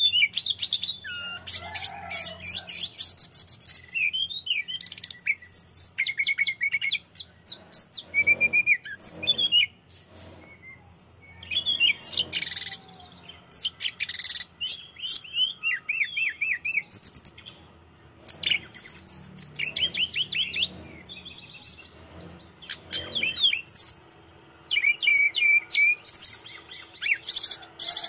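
Caged hill blue flycatcher singing in lively, varied phrases of high whistles and rapid trills, with short pauses between the runs.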